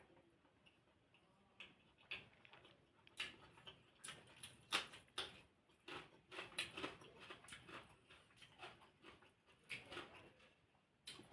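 Close-up eating sounds: a person chewing food, with irregular crunchy clicks and mouth noises that come thickest in the middle.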